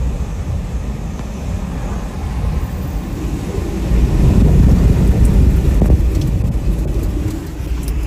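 Hurricane-force wind buffeting the microphone, a loud, low rumble that grows stronger about four seconds in.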